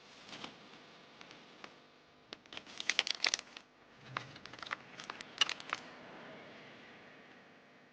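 Doll packaging crinkling and crackling as it is handled, in two bursts of sharp crackles about two and a half and five seconds in, with a few light ticks before them.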